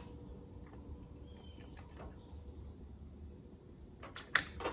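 Steady high drone of insects, with a few sharp clicks near the end as parts are handled at the engine.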